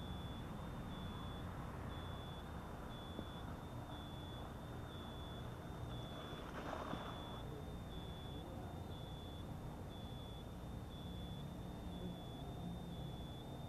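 A high electronic beep repeating about once a second, each beep about half a second long, over a steady low hum. A brief rush of noise rises and fades about halfway through.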